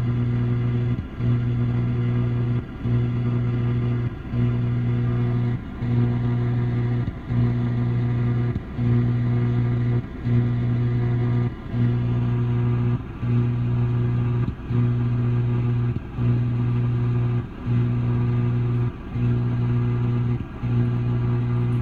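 Buzzing radio-frequency interference heard through an AM radio's speaker on the broadcast band near 950 kHz: a steady low buzz that drops out briefly about every second and a half. It is an unidentified noise source at the repeater site, suspected of troubling the repeater.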